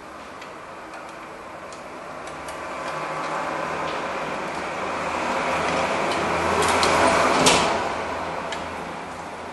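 Light metallic clicks of hand tools and return-spring hardware being fitted on a rear drum brake, with one sharp clack about seven and a half seconds in. Under them a rumble swells up and then fades.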